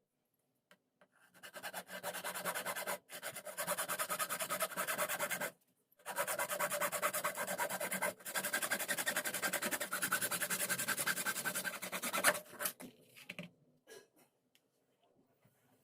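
Rasping of a tool rubbing against material in quick, even strokes, in long runs broken by short pauses about 3 and 6 seconds in. It stops about 12 seconds in, leaving a few faint clicks.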